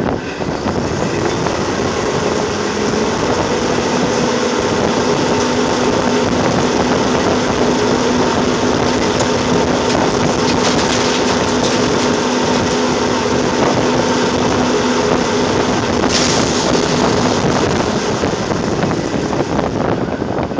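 Oil rig floor machinery running loudly and steadily, with a steady hum that comes in about two seconds in and fades near the end, and a short sharp noise about sixteen seconds in.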